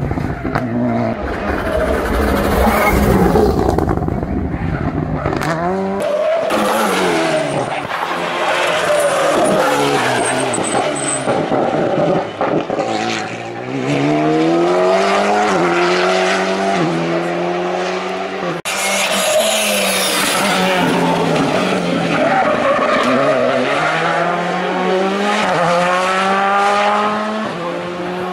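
Rally cars accelerating hard on a tarmac stage, engines revving up through the gears: the engine note climbs and then drops in quick steps at each shift, several times over. The sound breaks off abruptly about two-thirds of the way through and picks up again with another car.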